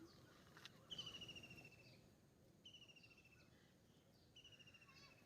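Faint bird song: three quick trills, each a rapid run of notes sliding slightly downward in pitch, about a second and a half apart, over near-silent background.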